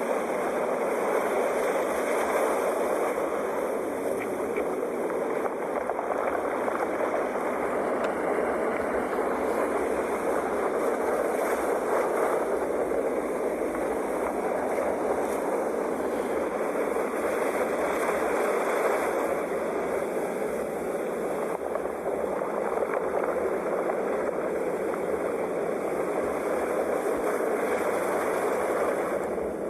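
Sea waves: a steady rushing of surf that swells and eases only slightly.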